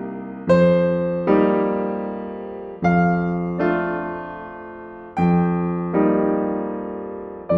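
Background piano music: slow, soft chords struck in pairs, each ringing and fading before the next.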